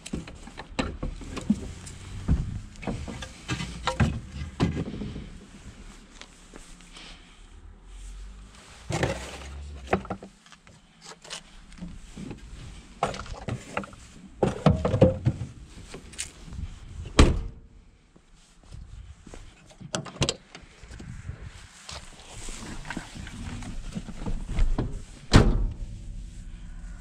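Hatch lid, rear seat and door of a Lada VAZ-2108 being worked by hand: a string of separate clunks, clicks and knocks from latches and panels, with handling noise between them. The loudest knocks come about 17 seconds in and near the end.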